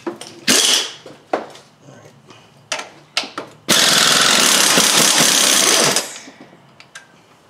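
Impact wrench hammering steadily for a little over two seconds, starting about halfway in, as it loosens the upper motor mount bolts. Before it come a brief burst and a few sharp clicks.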